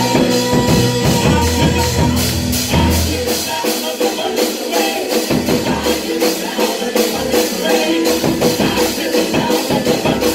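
Church praise music played by a band, with drums and bass keeping a steady beat under sustained instrument notes.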